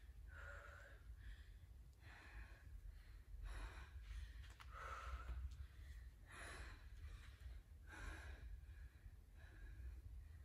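A woman breathing hard, with heavy in-and-out breaths roughly every second: recovering from an intense workout round.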